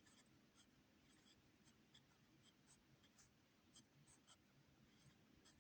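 Near silence with faint handwriting: short, scattered scratches and ticks of a pen or marker on a writing surface, a few a second.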